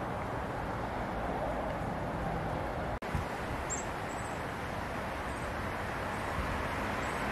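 Steady outdoor backyard ambience, a low even wash of wind and distant rumble, broken by a brief dropout about three seconds in. After it come a few faint, short, high bird chirps.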